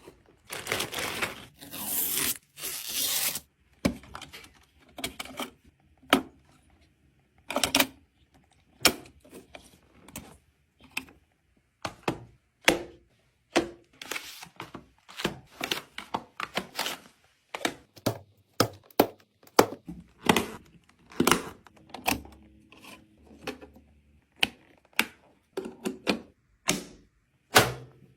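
Computer parts and packaging being handled during PC assembly. Near the start there are a few seconds of tearing and crinkling, then an irregular run of sharp clicks and knocks as parts are set down and fitted.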